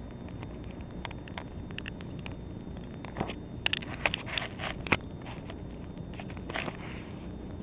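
Bull Terrier puppy mouthing and chewing at her ball: scattered short clicks and scuffs, thickest a little past the middle, over a steady low hum.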